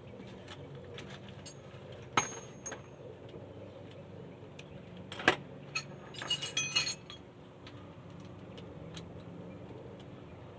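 Metal tools clinking: one sharp clink with a short ring about two seconds in, a louder clink a little after five seconds, then a quick rattle of clinks a second later.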